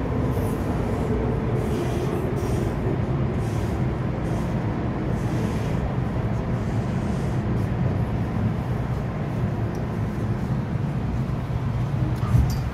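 MTR Island Line M-Train heard from inside the car as it brakes into a station: a motor whine falls in pitch over the first few seconds, then a steady low rumble as the train slows to a stop, with a short thump near the end.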